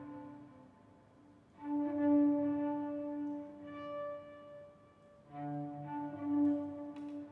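Slow instrumental music on a bowed string instrument: long held notes in two phrases, the first starting about a second and a half in and the second about five seconds in, with a near pause before each.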